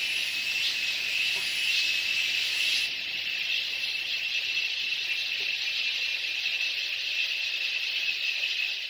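Rainforest ambience: a steady high-pitched drone and hiss with a constant thin whine running through it. The topmost hiss drops away about three seconds in.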